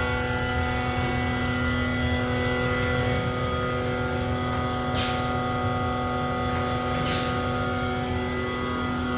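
Vacuum evaporative concentrator running steadily: a constant machine hum with several fixed tones from its motors and pumps. Two short hisses, about five seconds in and again two seconds later.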